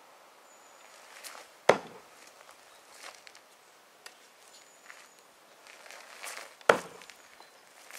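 Two sharp thuds about five seconds apart: a 'Diablo' throwing tool, 38 cm and 541 g, striking and sticking into wooden log-round targets. Fainter scuffs and clicks between.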